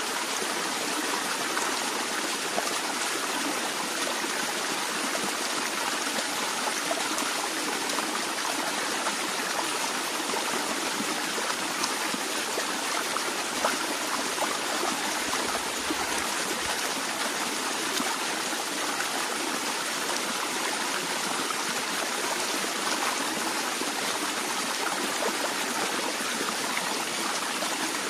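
A stream flowing steadily over stones, a continuous splashing rush with small trickles and droplets.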